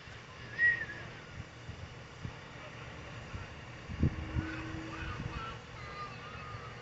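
Wind rumbling on the microphone outdoors, with a few short high chirps and a couple of brief low thumps about four seconds in.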